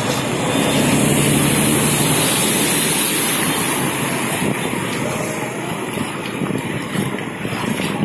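A bus driving through deep floodwater: its engine running and a loud rushing splash of water thrown off its wheels. The sound is loudest in the first half and eases off after about four seconds.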